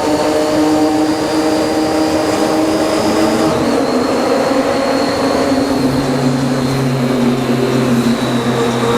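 Triumph Daytona 675R's inline three-cylinder engine running steadily at cruising speed over a constant rushing noise; its pitch drops a little about three and a half seconds in.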